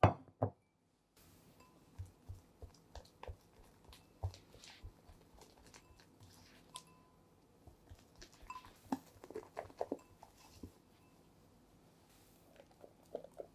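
Two sharp knocks right at the start, then a silicone spatula mixing stiff meringue into egg-yolk batter in a glass bowl. The mixing gives a run of soft irregular taps, squishes and scrapes, with the spatula now and then ticking against the glass with a short ring.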